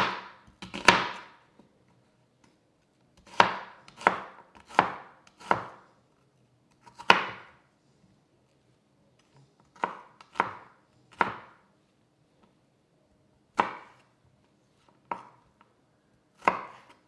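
Knife chopping on a cutting board: about a dozen sharp chops at an uneven pace, in small clusters with pauses between them.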